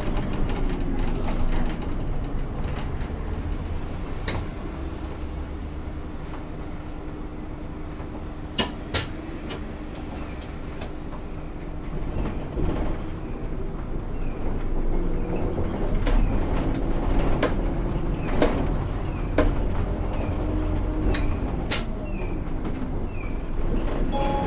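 A city bus running slowly, heard from up front inside the bus: a steady engine hum with scattered sharp clicks and rattles. Short high chirps repeat about once a second near the end.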